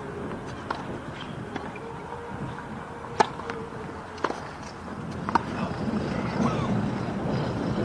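Tennis ball on a hard court: two faint bounces, then three sharp racket hits about a second apart in a short rally, the first and loudest being the serve. A low rumble of background noise swells in the last couple of seconds.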